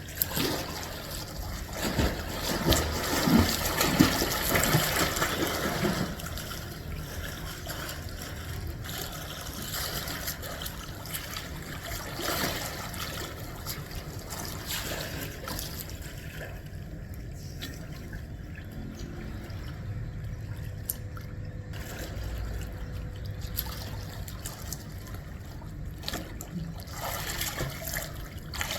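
Water trickling and running steadily, louder and busier for a few seconds near the start.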